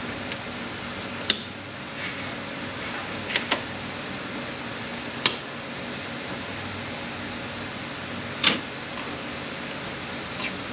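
Sharp metal clicks and clinks of automatic transmission internals (snap rings, races, clutch parts) being pried out and set down during a teardown, about five of them, the loudest about eight seconds in, over a steady fan-like hum.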